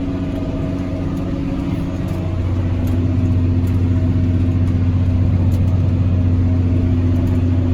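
John Deere tractor's diesel engine running steadily under load while pulling a round baler, heard from inside the cab, getting a little louder about two and a half seconds in.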